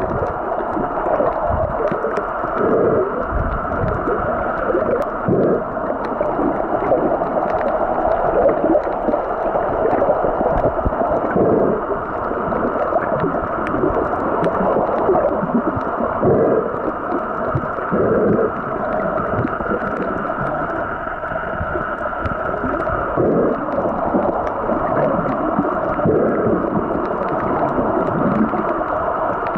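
Underwater sound picked up through the body of a waterproof Sony TX10 compact camera: a steady, muffled rush of water, broken by irregular low swishes and thumps as the camera moves through the water.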